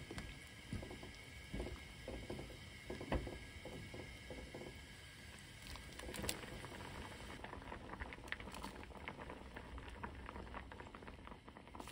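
Doenjang stew bubbling at a simmer in a pan, with a spatula stirring and tapping through the first few seconds. About six seconds in, cubes of tofu are dropped in from a bowl with soft splashes.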